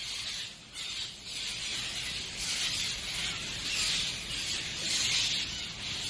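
A large flock of peach-fronted parakeets screeching all at once, a dense high-pitched chatter that swells and fades every second or so.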